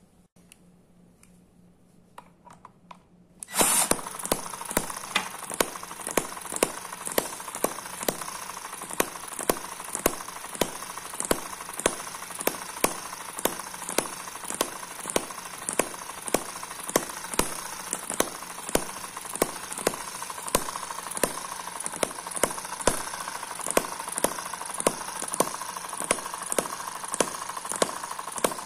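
M19 miniature vertical four-stroke hit-and-miss engine with a flying ball governor running after a few quiet clicks, heard from about three and a half seconds in: sharp firing pops come evenly, about twice a second, with fainter ticks between them over a steady hum.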